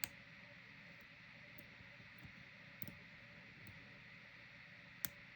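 Faint, sparse clicks of lock picking in a Cisa sliding-bolt padlock, the pick and pins ticking in the cylinder: a sharp click at the start, a double click about three seconds in, and another near the end, over a low hiss.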